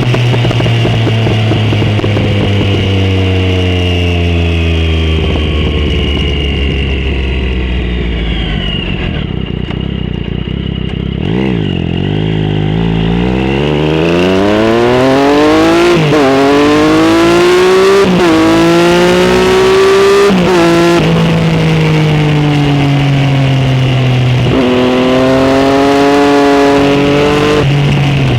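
Motorcycle exhaust heard from a mic clipped under the seat while riding. Engine revs fall away for about ten seconds as the bike slows, then climb again through several gears, each upshift a sudden drop in pitch. It holds a steady cruise for a few seconds, then accelerates again. Wind noise and some rattle from the vibrating mic clip run underneath.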